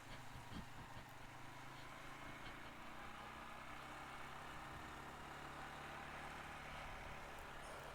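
CFMOTO CForce 500 ATV's single-cylinder engine running steadily at low engine speed.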